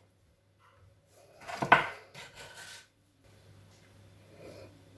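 Floured cottage-cheese patties being set into a ceramic frying pan of oil, with one sharp knock against the pan about a second and a half in. After it there is only a faint sizzle: the oil is not yet fully hot.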